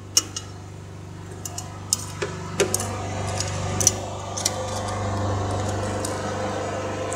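Scattered light clicks and clinks of utensils against a metal baking tray, over a steady low hum. Handling noise grows louder a few seconds in.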